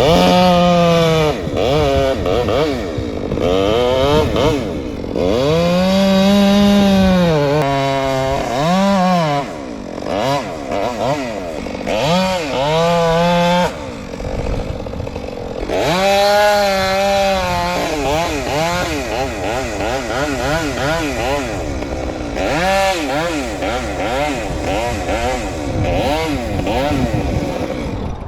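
Two-stroke chainsaw cutting into very hard Australian pine, its engine revving up and bogging down over and over as the chain loads in the wood. There is a brief, lower and steadier stretch about halfway through, then quicker, shorter swells in pitch toward the end.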